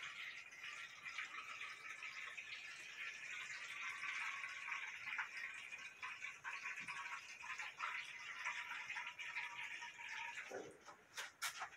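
Water pouring in a steady stream into a glass dish of kimchi brine and greens. The pour stops about ten and a half seconds in, followed by a few light knocks.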